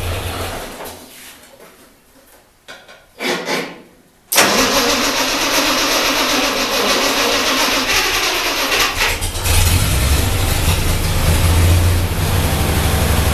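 Ford 8N tractor engine fading away, then, about four seconds in, the starter suddenly cranks it. It catches about nine and a half seconds in and runs steadily.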